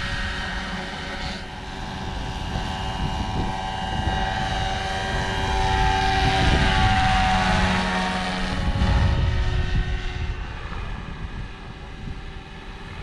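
Radio-controlled scale Bell 412 model helicopter flying past with a whine of several tones over the rotor noise. The pitch drops as it goes by about halfway through, when it is loudest, then it fades as it climbs away.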